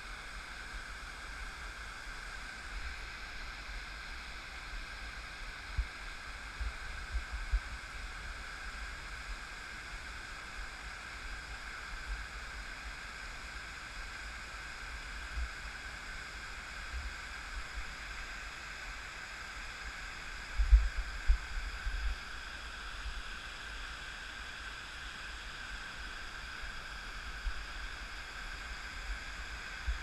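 Steady rushing of water pouring down a dam's stepped concrete spillway into the river. A few low thumps on the microphone break in, a cluster about six to eight seconds in and the loudest around twenty-one seconds.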